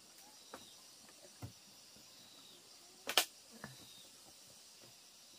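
Steady background chirring of insects, with a few light knocks and one short, loud swish about three seconds in.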